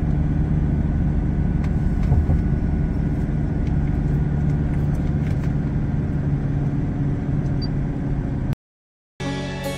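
Car engine and tyre noise heard from inside the cabin while driving, a steady hum. It cuts off suddenly near the end, and music starts just after.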